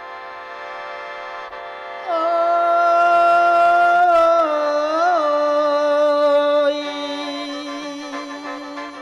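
Khaen (bamboo mouth organ) sounding a sustained chord, joined about two seconds in by a mor lam singer holding one long opening note of lam long that wavers briefly and then steps down in pitch.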